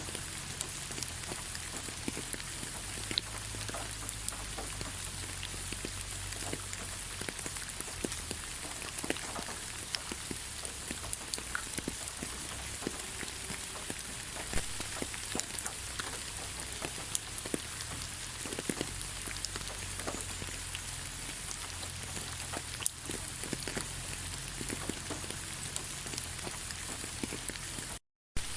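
Steady rain falling in a forest, an even hiss with many scattered individual drops ticking. The sound cuts out completely for a fraction of a second near the end.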